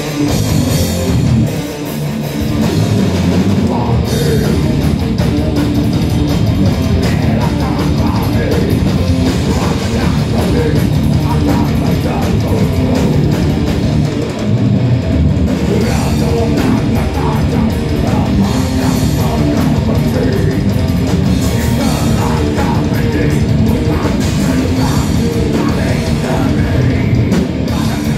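Heavy metal band playing live: loud distorted electric guitars and a pounding drum kit, heard from within the audience.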